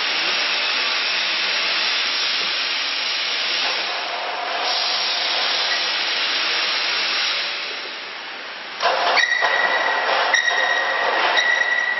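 QTJ4-40 concrete block-making machine running with a steady hissing noise. From about nine seconds in it turns louder, with a high steady whine that starts and stops in several runs separated by short gaps.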